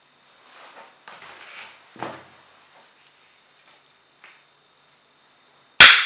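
Hands handling a fiber optic patch cable and small tools on a table: soft rustles and light knocks, with one firmer knock about two seconds in. Near the end comes a single sharp, loud click that rings briefly.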